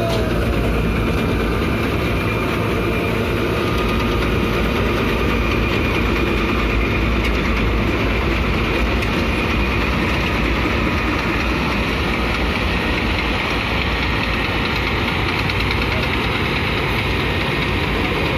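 Diesel engine of a tractor-mounted combine harvester running steadily at a loud, even pitch.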